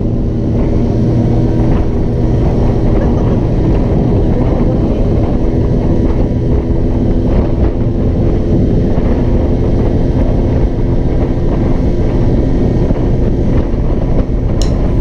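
Two-stroke scooter engine running steadily at cruising speed, with wind buffeting the microphone.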